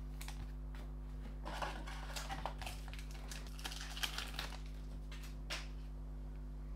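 Foil wrapper of a Panini Donruss Optic trading-card pack crinkling as it is torn open, in several short rustles, with small clicks of the stiff cards being handled.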